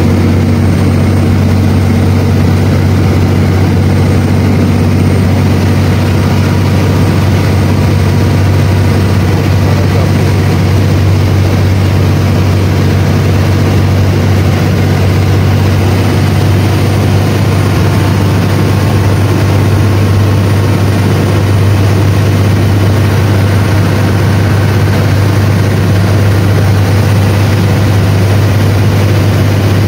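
Passenger speedboat under way at cruising speed: its engine makes a loud, steady low drone, over the hiss of the wake and spray rushing past the hull.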